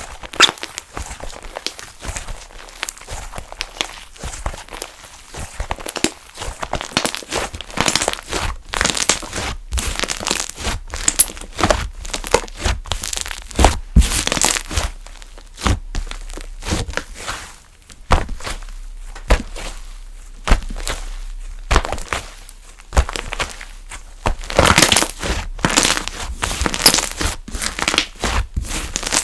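Hands kneading, pressing and stretching funfetti slime, making dense runs of sharp clicks, pops and crackles in bursts with brief pauses.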